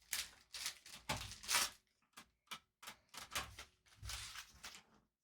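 A trading-card hobby box being opened and its cards handled: a run of short rustling, tearing and scraping noises of cardboard and wrapper. The sound cuts off suddenly near the end.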